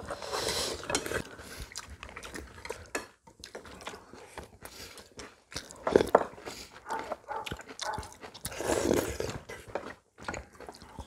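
Several people eating at a table: chewing and slurping, with many small clicks of chopsticks and spoons against ceramic bowls, and a louder knock about six seconds in.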